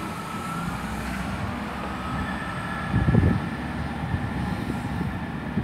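Class 165 Turbo diesel multiple unit pulling away from a station, with a steady low engine rumble and a faint thin whine. The rumble swells briefly about three seconds in.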